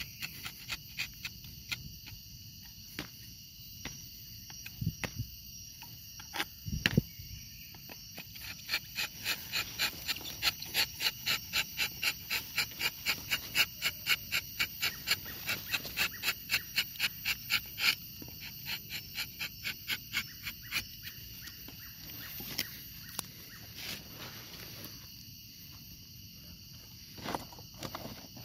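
Rubber-tapping knife shaving a thin strip of bark along a rubber tree's tapping cut in short strokes, a sharp scraping click about two or three times a second, densest and loudest through the middle. The cut opens the latex vessels so the latex flows. Insects drone steadily behind.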